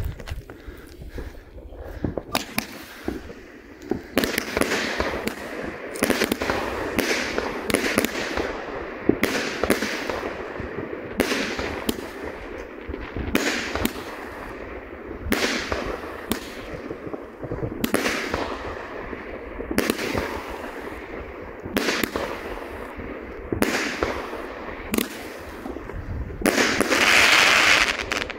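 Pyromax Crux 19-shot 30 mm firework battery firing its shots one after another, about one a second, each a sharp bang with a fading noisy tail. Near the end comes a longer, denser burst of noise.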